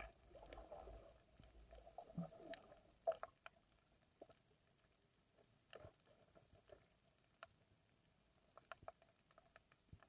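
Near silence underwater: faint scattered clicks and crackles over a faint steady hum, with one sharper click about three seconds in.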